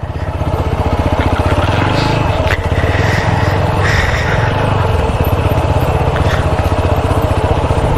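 Yamaha R15 single-cylinder motorcycle engine running steadily at low speed, chugging over a rough, rocky dirt track, with a couple of brief clicks.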